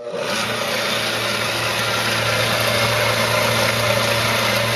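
Electric-motor water pump switching on abruptly and running with a loud, steady hum, pumping rainwater from storage barrels into a bladder pressure tank.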